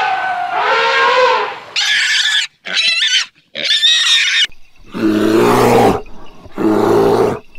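Animal calls one after another: a short pitched call near the start, high pig squeals from about two to four and a half seconds in, then two deep growls from a brown bear.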